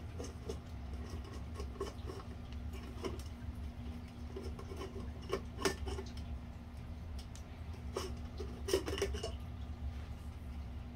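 Small clicks, clinks and scrapes of ceiling fan parts being handled, sharpest about five and a half seconds in and again around nine seconds, over a steady low hum.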